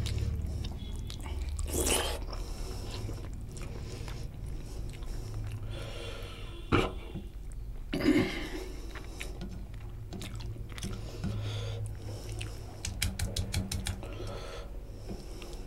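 A man chewing and smacking while eating rice and chicken curry by hand, with a couple of louder wet clicks about halfway through and a quick run of mouth smacks near the end.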